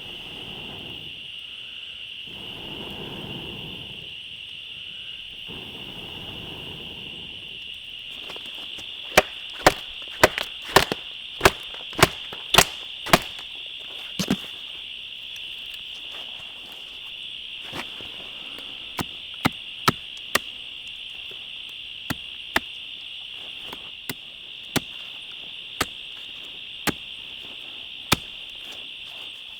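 Steady high chirring of insects, with soft rustling in the first few seconds, then a run of sharp, irregular snaps and clicks starting about a third of the way in, densest for several seconds and sparser after.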